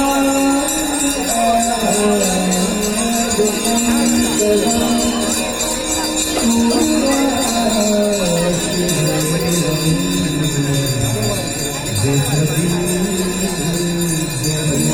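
Music: a gliding melody over steady jingling bells.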